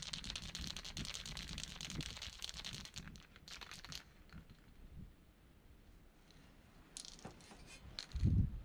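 Rust-Oleum Hard Hat aerosol spray paint can hissing as it sprays for about four seconds, then stopping; a few faint clicks follow and a low thump comes near the end.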